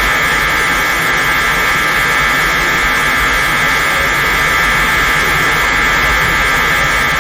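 Mechagodzilla sound effect: a steady, loud hiss with a cluster of high whining tones held unchanged, like a jet thruster or energy beam.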